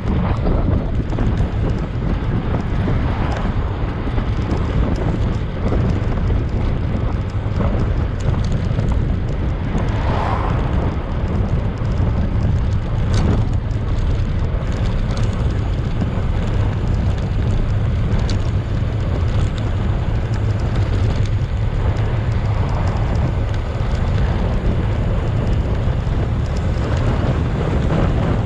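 Wind buffeting the microphone of a camera on a moving bicycle: a steady, loud, low rumble of rushing air.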